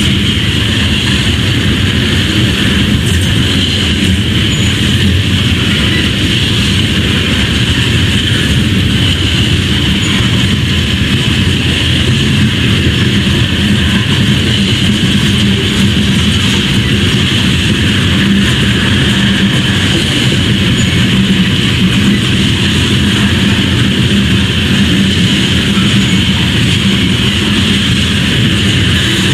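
Loaded coal cars of a CSX freight train rolling past: a steady rumble and hiss of steel wheels on the rails, even throughout with no clear clacks or breaks.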